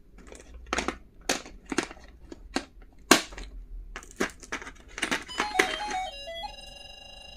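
Stationery and its plastic packaging being handled, with sharp clicks and crinkling for about five seconds. A short electronic melody of stepped tones then comes in and settles into a steady held chord.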